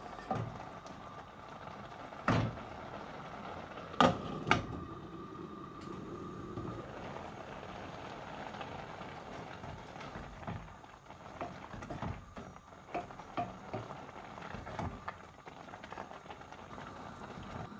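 Grated pumpkin simmering and bubbling in a steel pot. A spatula knocks sharply against the pot three times in the first five seconds, then stirs with a run of light clicks and scrapes.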